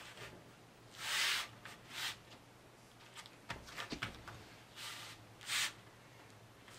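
Hands pressing and rubbing across a backing board glued to foam core, making four short swishes, with a few small clicks and taps in the middle.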